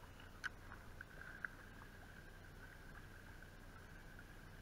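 Faint steady whir of a spinning reel being cranked during a retrieve, with two small sharp clicks about half a second and a second and a half in.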